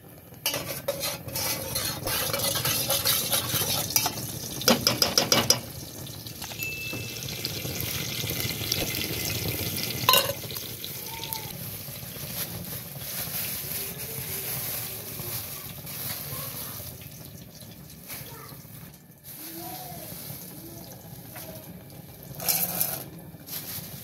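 Kitchen handling at a gas stove: a metal spoon clinking and scraping against a steel pot, with a quick run of clinks about five seconds in and one sharp clink around ten seconds. Then a plastic bag of popcorn kernels rustles as it is opened, with a brief louder rattle near the end.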